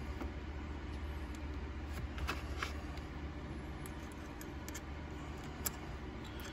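A few faint, scattered clicks of small metal knife parts being handled and fitted by hand, over a steady low hum.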